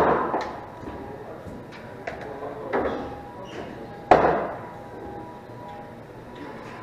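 Pool balls clacking during play: a loud sharp crack at the start, a softer knock a little under three seconds in, and another loud crack about four seconds in, each with a short ringing decay.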